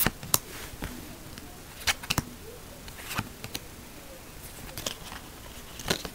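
A stack of trading cards being flipped through by hand, one card at a time: irregular short snaps and clicks of card stock, with the cards sliding against each other in between.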